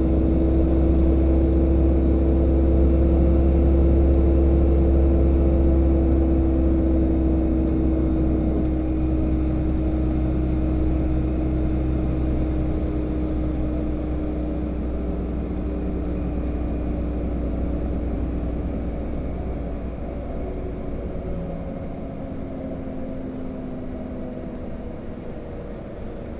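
Bus engine and tyre noise heard from inside the moving bus's cabin: a steady deep drone with an engine tone that slowly falls in pitch as it gradually gets quieter. The deepest rumble drops away near the end.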